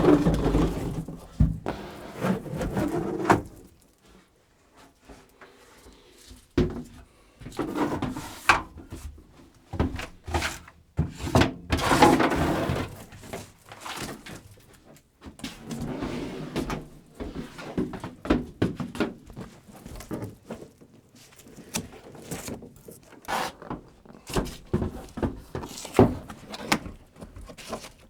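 Irregular thunks, knocks and scraping from an insulated wall panel being handled and fitted against a metal channel in a van's cargo area.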